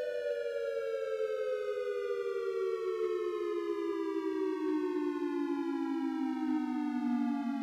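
CWS Allerton ARS-1200 electronic siren winding down: a chord of several tones falling slowly and steadily in pitch together.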